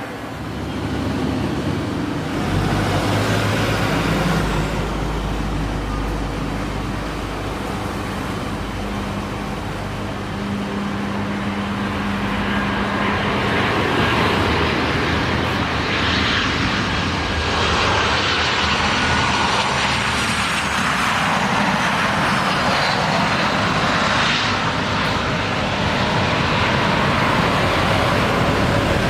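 Jet airliner's engines running as it passes, the noise building in the second half, with a high whine that falls in pitch a few seconds before the end.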